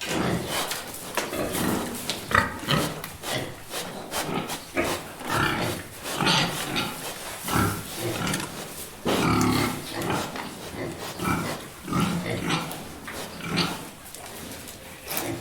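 Several pigs grunting and oinking in a dense, irregular run of short calls.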